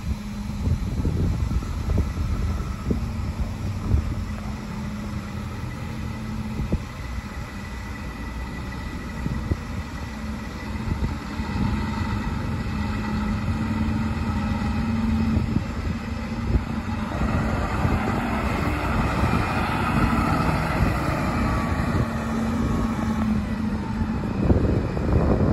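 Diesel engine of a tractor-drawn aerial ladder fire truck running as the truck drives slowly up and passes close by, getting louder as it nears.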